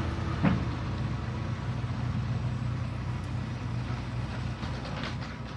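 Heavy diesel machine engine running steadily, with a single sharp clank about half a second in.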